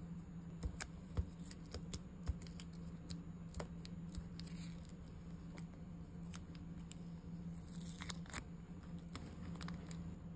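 Fingers picking at loose plastic sequins in a small plastic dish and container: scattered sharp little clicks and taps, with soft rustling twice, about four seconds in and again near eight seconds. A faint steady low hum runs underneath.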